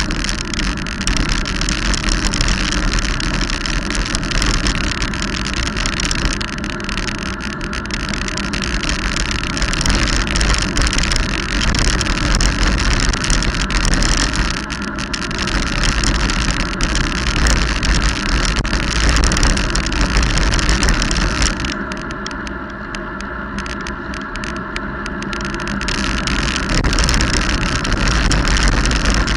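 Wind rushing over the camera microphone, with tyre noise on the road surface, during a fast bicycle descent. The rush eases for a few seconds about three-quarters of the way through, then builds again.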